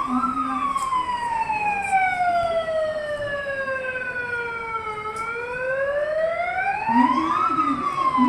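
A wailing emergency siren, its pitch sliding slowly up and down: a peak just after the start, a long fall to a low point about five seconds in, then a rise to another peak near the end. A fainter, lower wavering tone sounds near the start and again near the end.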